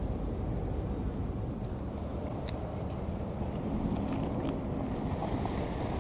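Steady wind rumble buffeting an outdoor microphone by the sea, a continuous low noise without any distinct tone.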